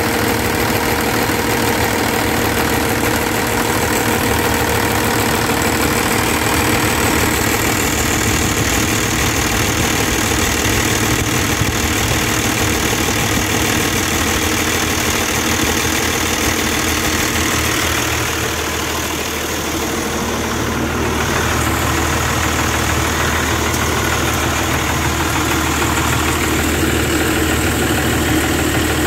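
A 5.9 L Cummins 12-valve inline-six turbodiesel in a 1990 Dodge Ram W250, fitted with a VE injection pump, idling steadily.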